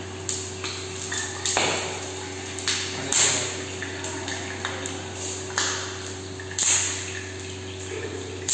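Steady hum of a gas burner on a high flame under a frying pan on a commercial range, with sharp pops and short sizzles every second or so, typical of hot oil spitting in the pan.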